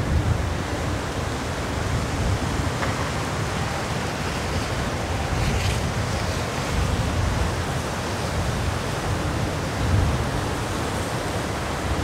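Gusty cold winter wind blowing through the bare branches of an old hackberry tree: a steady rushing with low rumbling buffets of wind on the microphone. A stronger gust swells about ten seconds in.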